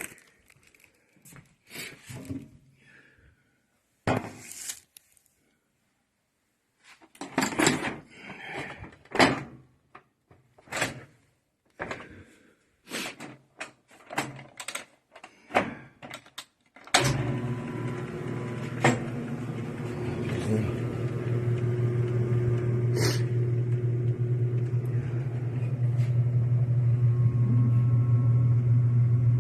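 Scattered knocks and clicks from handling a washing machine, then about 17 seconds in a steady electric motor hum starts suddenly and keeps running, as the reassembled washer is tested.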